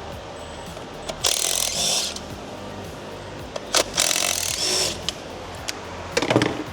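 Two bursts of a power tool, each about a second long, with a shorter one near the end, over background music.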